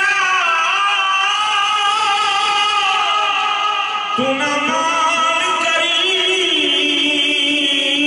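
Men's voices singing a devotional chant in long, slowly bending held notes. A lower voice comes in about four seconds in.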